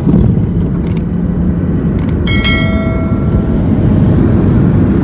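Loud, steady rumble of a jet airliner's engines and cabin noise heard from a window seat while the plane is on the runway. Two click sound effects about one and two seconds in are followed by a bell-like chime that rings for about a second.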